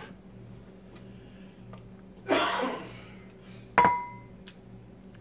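A dish, most likely the serving bowl, handled on a hard countertop: a short scraping sound about two seconds in, then one sharp clink that rings briefly.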